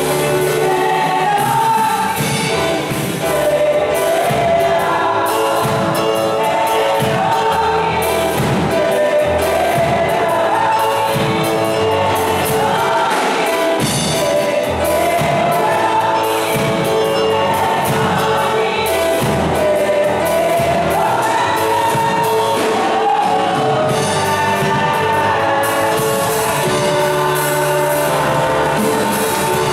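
A women's gospel choir singing together into microphones, several voices at once in a lively song.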